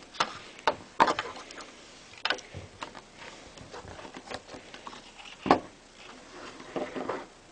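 Scattered light clicks and taps of small hard objects being handled, with one sharper knock about five and a half seconds in.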